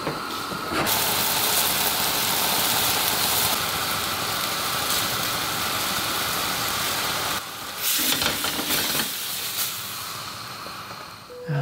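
Seafood sizzling in a stainless steel frying pan over a gas flame: a steady hiss that drops away about seven seconds in, then a few light knocks and a fading sizzle.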